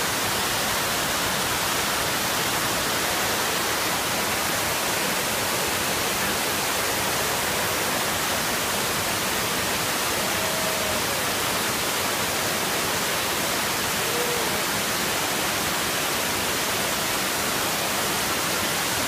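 Waterfall cascading over broad stepped travertine rock ledges: a steady, loud rush of falling water.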